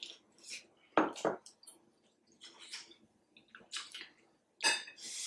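Sipping and slurping hot broth from small bowls, in short wet bursts, with a louder slurp about a second in. Near the end, chopsticks clatter against the dishes.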